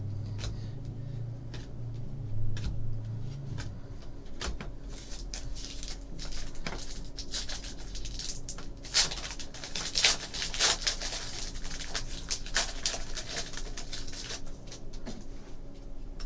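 Trading cards shuffled and flicked by hand, and the foil wrapper of a Panini Contenders football card pack crinkled and torn open, with a dense run of crinkling in the second half.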